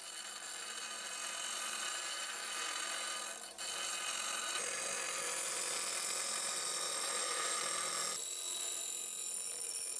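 Bench grinder's sanding belt grinding the steel edge of a rusty cleaver blade: a steady high whine over a hiss, with a brief dip about three and a half seconds in.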